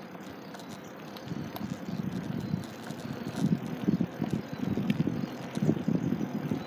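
Low, uneven rumble of wheels rolling over asphalt, louder from about a second and a half in.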